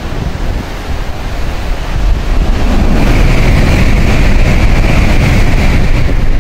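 N700-series Shinkansen passing through the station at high speed without stopping: a rush of train noise that builds about two seconds in and stays loud, with a high hiss over the top for a few seconds as the cars go by.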